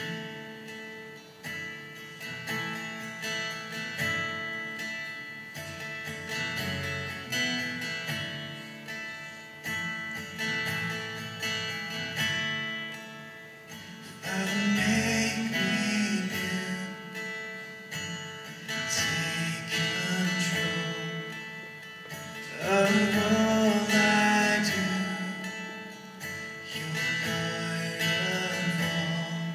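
Solo acoustic guitar playing a slow song, with a man's singing voice coming in for a phrase about halfway through and another a few seconds later.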